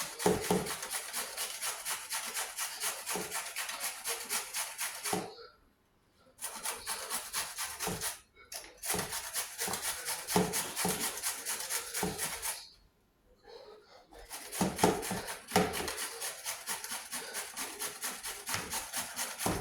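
Raw pumpkin being grated on a hand grater: quick, rhythmic rasping strokes in several runs broken by short pauses.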